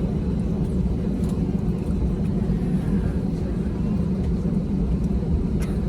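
Steady low rumble inside a jet airliner's cabin as it taxis slowly toward the runway.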